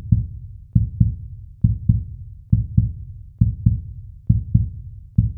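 Intro beat of low double thumps like a heartbeat, one pair a little faster than once a second, each thump dying away quickly.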